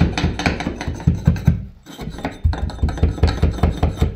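Carpet bolster jabbed rapidly along the edge of a glued-down sisal carpet, tucking it in against the skirting board: a quick, even run of dull strokes, about five a second, with a short break a little over a second and a half in.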